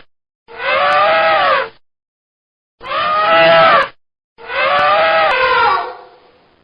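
Elephant trumpeting: three separate calls, each about a second long, rising and falling in pitch. The last one trails off near the end.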